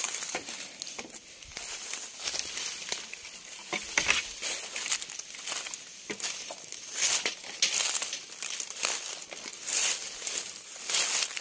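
Footsteps crunching and rustling through dry bamboo leaf litter, in irregular bursts of crackling.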